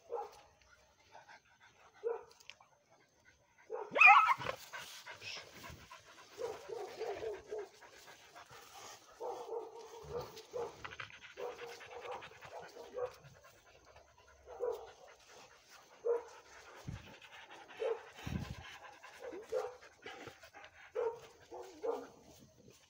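A pack of leashed hunting hounds panting and giving short, repeated yelps, the loudest about four seconds in.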